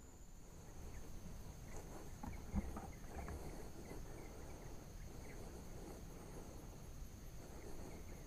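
Faint, steady high-pitched insect drone from the surrounding vegetation, with scattered soft rustles and small knocks. One knock is slightly louder, about two and a half seconds in.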